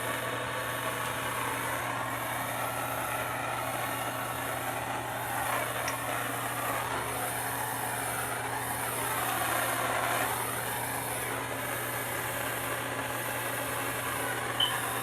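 Handheld gas soldering torch burning with a steady rushing hiss, heating a copper pipe joint as it is sweated with solder.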